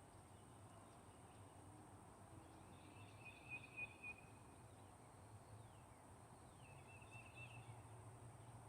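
Faint outdoor ambience, close to silence, with a few distant bird chirps and trills about three seconds in and again near the end.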